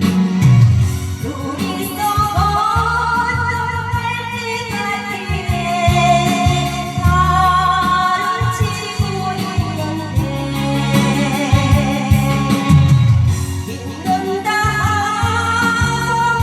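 A woman singing a Korean ballad with vibrato over a backing track, with the bass accompaniment running under the voice.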